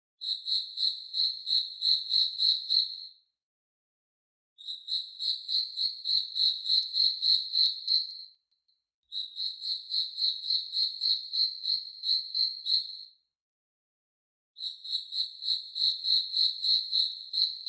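Cricket chirping, high-pitched and regular at about four chirps a second, in four bouts of three to four seconds each with short silent gaps between.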